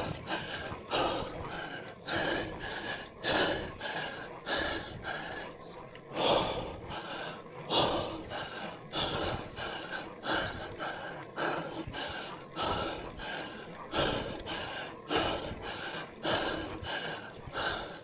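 A cyclist breathing hard and rhythmically while climbing a steep hill. The rapid, heavy breaths come about one every three quarters of a second, the labored panting of a sustained effort on a grade averaging about 10%.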